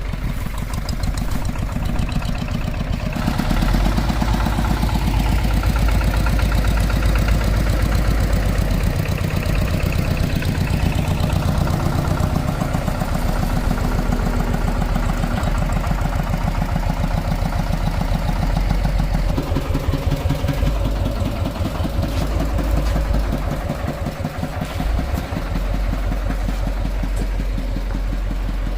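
Hand tractor engine running with a rapid, steady firing beat. It grows fuller about three seconds in and eases briefly later on.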